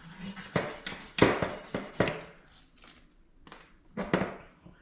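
Short, irregular hand strokes of fine sandpaper, about 2000 grit, smoothing a scraped part. There are about six strokes.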